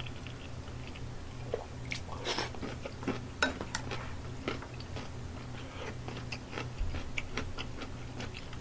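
Close-miked chewing of crunchy radish kimchi: irregular wet crunches and mouth clicks, a cluster of louder crunches about two to four seconds in, over a steady low hum.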